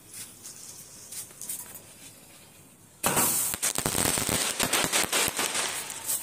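Homemade multi-shot firework cake fizzing and crackling faintly as sparks spray from its tube. About three seconds in, a sudden dense run of loud cracks and bangs follows as the shots fire and burst overhead.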